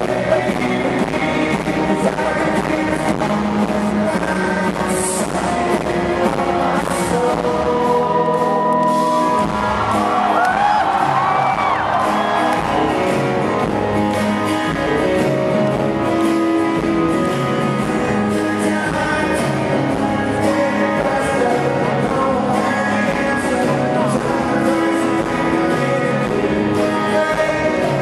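Live rock band playing a song, with guitars and a man singing the lead vocal.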